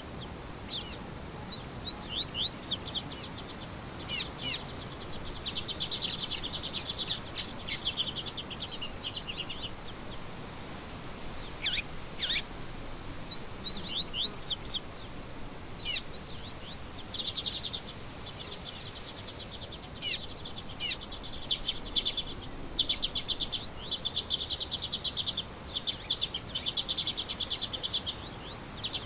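Songbirds singing: quick high chirps and sweeping whistled notes, with several stretches of fast rapid trills lasting a few seconds each, over a faint steady background hiss.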